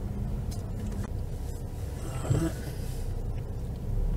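Low, steady rumble of a car's engine and tyres, heard inside the cabin while driving slowly. A short, louder sound with a rising pitch comes about halfway through.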